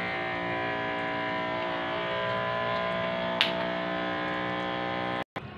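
Electric water pump for a spray wand running with a steady whine, with one sharp click about three and a half seconds in; the sound stops abruptly near the end.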